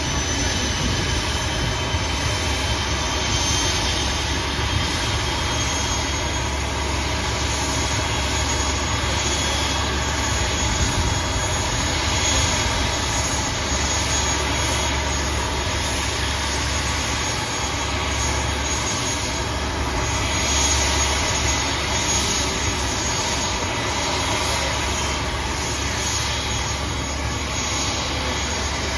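ATR 42-600 turboprop parked on the apron with an engine running: a steady turbine whine and rumble with a few high, constant tones, its propellers standing still.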